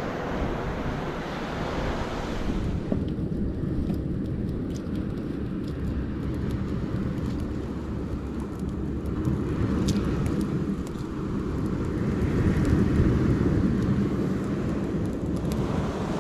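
Wood campfire burning, with scattered faint crackles and pops over a steady low rumbling noise.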